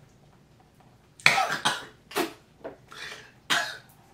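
A man coughing and sputtering, about four sharp coughs starting a second in, after water splashed into his face.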